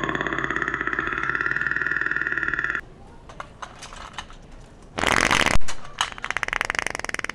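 A loud, pitched, rapidly pulsing growl-like sound lasts nearly three seconds, then cuts off. About five seconds in, a fart noise-maker toy lets out a loud wet fart that trails off in a rapid sputtering rattle.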